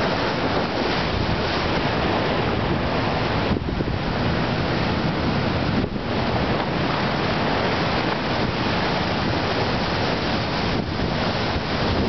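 Storm surf at high tide: waves breaking and foaming water rushing up the beach in a steady, dense wash, with wind buffeting the microphone.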